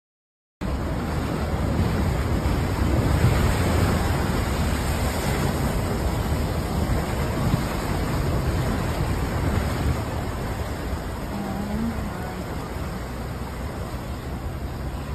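Floodwater rushing, a steady even noise that cuts in suddenly about half a second in and is loudest a few seconds later.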